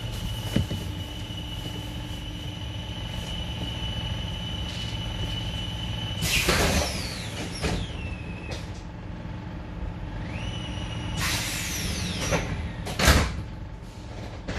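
Stadtbahnwagen B light-rail car standing at a platform: a steady high whine from the car, then two bursts of hissing with falling whines, about six and eleven seconds in. A sharp thump about thirteen seconds in is the loudest sound.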